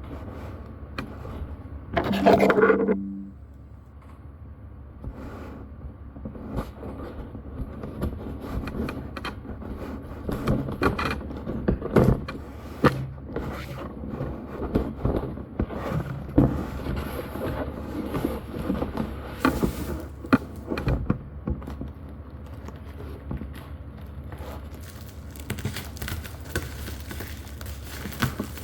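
Hand-handling noises of unboxing: scattered scrapes, knocks and clicks of packaging and items being moved about. About two seconds in there is a louder sound with a held low tone, lasting about a second.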